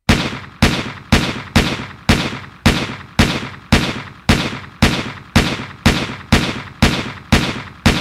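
A gun firing shot after shot in a steady rhythm, about two shots a second, each sharp crack followed by a short decaying ring.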